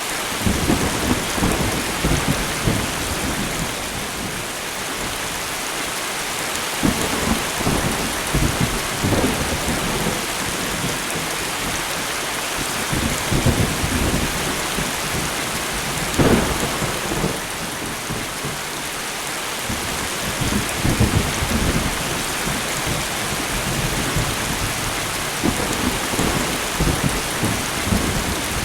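Steady light rain falling with a constant hiss, under rumbling thunder that rolls in and out repeatedly, with a sharper crack of thunder about halfway through.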